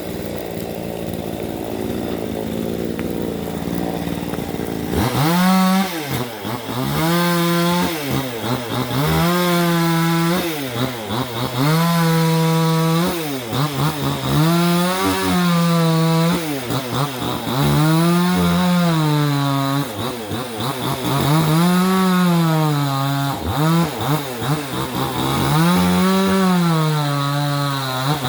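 Vevor 62cc two-stroke chainsaw running at a low, steady speed, then from about five seconds in revving up to full throttle and dropping back again and again, about every two seconds, as it cuts up a fallen tree.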